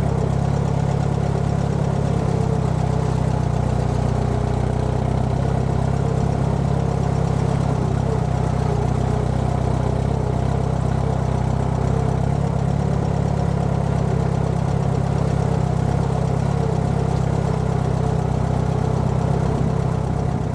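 Allis-Chalmers B tractor's four-cylinder engine running at a steady speed as the tractor is driven, an even note that does not change.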